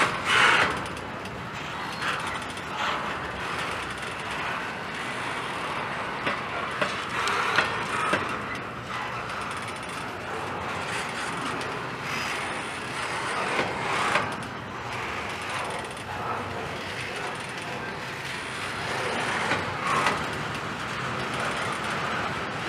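Double-stack intermodal train's well cars rolling past: steel wheels running on the rails with a steady rattle, and irregular sharp clanks and clicks from the cars and wheels.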